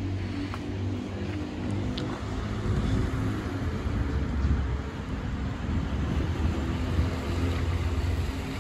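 A vehicle engine droning steadily and low, growing a little louder about three seconds in.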